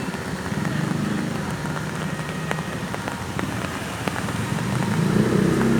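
Street traffic: a motor vehicle's engine running under a steady hiss, with a few light clicks, its rumble growing louder about five seconds in as a vehicle draws close.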